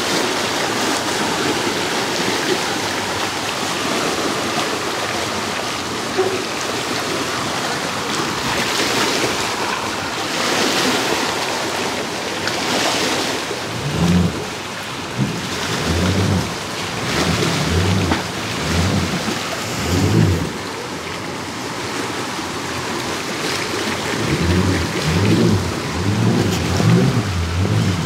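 Strong wind rushing across the microphone, with choppy lake water splashing against the boat ramp. From about halfway on, repeated gusts buffet the microphone in low, blasting surges.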